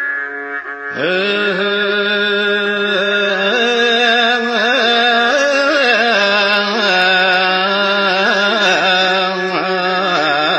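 Male hymn singer in the Ethiopian Orthodox zelesegna chant style, holding one long melismatic 'ehe' that wavers and turns in pitch. It enters about a second in and runs for roughly nine seconds, over steady accompaniment.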